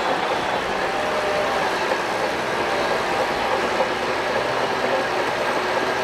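A Shantui DH17 crawler bulldozer working: a steady engine noise under the clatter and faint squeal of its steel tracks.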